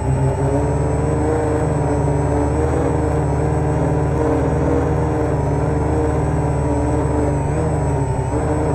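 Homemade quadcopter's electric motors and propellers running in flight: several steady whining tones that waver slightly as the motors adjust, heard from the craft's onboard camera, over a heavy low rumble of gusty wind on the microphone.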